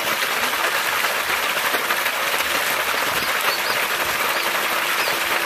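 A heavy stream of water gushing from a pump's outlet pipe and splashing onto a flooded concrete floor: a steady rushing splash.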